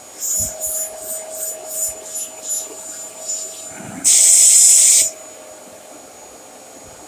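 Dyson DC33 Animal bagless upright vacuum cleaner running with a steady high whine, broken by a quick run of short hissing rushes of air and then one louder hiss lasting about a second, about four seconds in.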